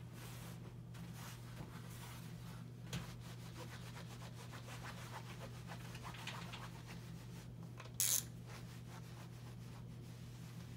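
Iron sliding and rubbing over fabric on an ironing board, with faint scraping and ticks over a steady low room hum. About 8 s in comes one short loud hiss.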